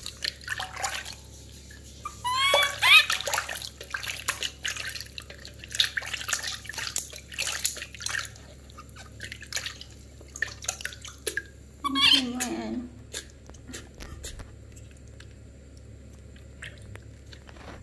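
Newborn monkey crying in short, high squealing calls a couple of seconds in, and a single falling cry about twelve seconds in, while it is washed by hand. Water splashes and drips throughout the first half.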